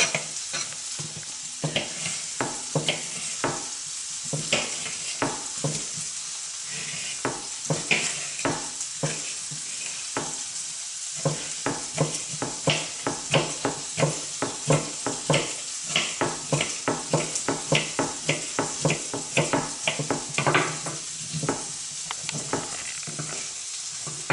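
Kitchen knife chopping red bell pepper on a wooden cutting board: a run of sharp knocks on the board, irregular at first, then a quicker, steadier run of about two cuts a second from about halfway in. A steady hiss sits underneath.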